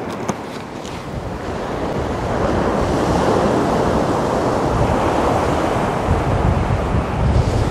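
Sea surf breaking on the beach with wind buffeting the microphone, a steady rushing that grows louder about two seconds in. A few light clicks of tackle being handled at the very start.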